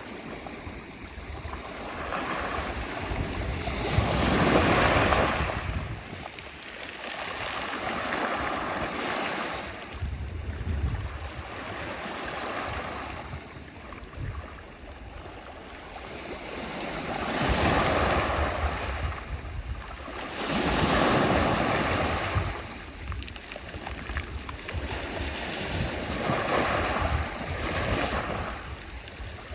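Sea waves breaking and washing on the shore, swelling and fading every few seconds, with a low rumble of wind on the microphone at times.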